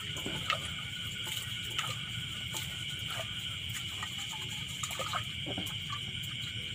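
Hands sloshing and rubbing rice in water in a metal pot, with small splashes and clinks against the pot, over a steady high chorus of night insects.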